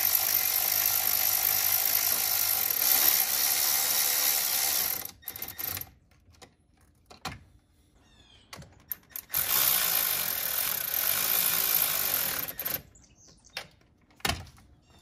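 Cordless electric ratchet running a nut down on a battery terminal in two long steady runs, the first about five seconds and the second about three seconds. Short clicks and knocks come between the runs and after them.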